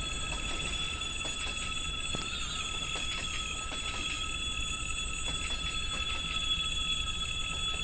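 A train running along the track: a low rumble under a steady high-pitched whine, with scattered faint clicks.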